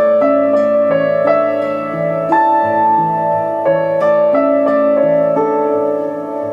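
Background music: a gentle piano melody of sustained notes with soft note changes.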